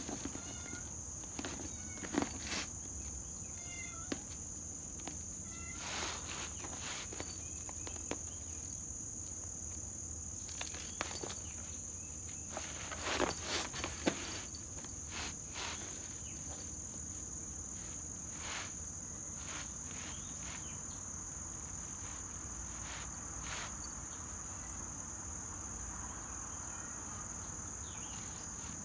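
Scattered scuffs and scratches of a cat's claws catching on a woven rug and scrabbling on concrete, with a brief flurry of louder ones about halfway through. Under them, insects trill steadily and high.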